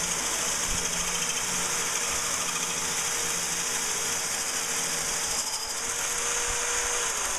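Corded electric drill running steadily with a diamond-coated hole saw grinding through a water-cooled glass aquarium panel. A steady hum within the sound stops near the end.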